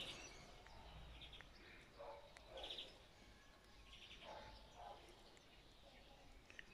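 Near silence with faint bird chirps in the background: short, quick trills every second or so.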